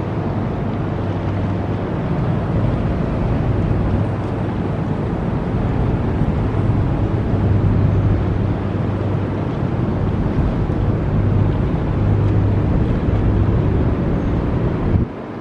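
Low, steady drone of the Ro-Ro ferry Ritsurin No.2's engines as the ship pulls away from its berth, a deep hum carried over a broad rushing noise. The level drops abruptly just before the end.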